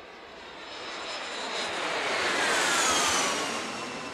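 Cessna Citation CJ2's twin Williams FJ44 turbofans passing by: a jet whine and rush that swell to a peak about three seconds in, the whine falling in pitch as the aircraft goes past.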